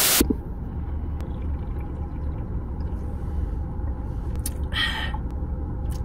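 Car engine idling with the air conditioning on, heard from inside the cabin as a steady low rumble. A short glitchy crackle opens it, and a brief hiss comes about five seconds in.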